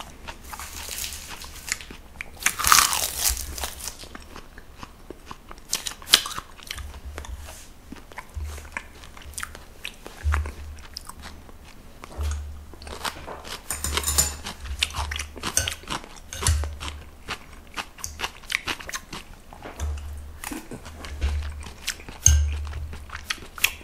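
A person chewing and crunching food close to the microphone, with irregular clicks of chopsticks and a spoon against bowls.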